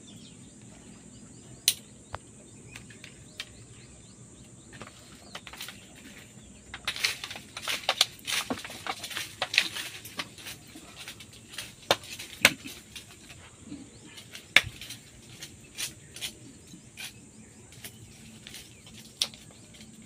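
Hard-shelled bael fruit being smashed open by hand: a string of sharp knocks and cracks, thickest between about seven and thirteen seconds in. A steady high insect drone runs underneath.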